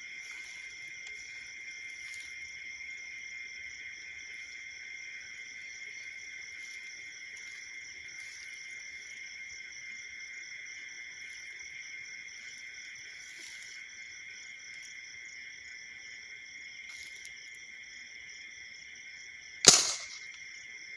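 Steady chorus of night insects chirping. Near the end, a single sharp air-rifle shot, the loudest sound, fired at a field rat.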